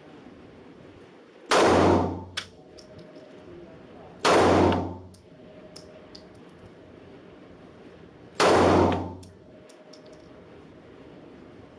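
Three shots from an FN FNS-9 9 mm pistol, a couple of seconds apart, each a loud crack that dies away within about half a second, with small light clinks after each.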